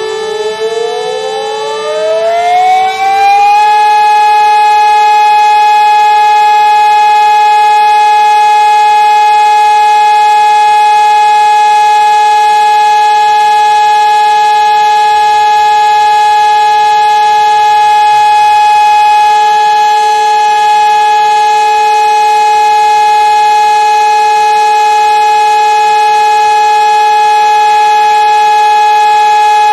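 Fire station alarm siren winding up, its pitch rising over the first few seconds, then holding a loud, steady wail. It is the alarm that summons the volunteer fire crew.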